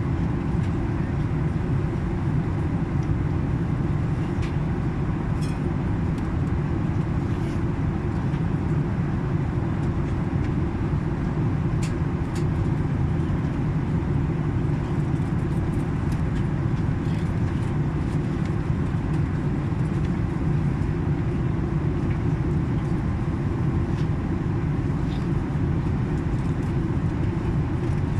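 Steady low rumble of an airliner's cabin noise in flight: engines and airflow heard from inside the cabin, unchanging throughout, with a few faint clicks.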